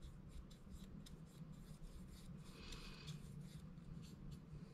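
Faint scratchy strokes of a tiny brush applying wood stain to a small piece of wood, several short strokes a second, over a low steady hum.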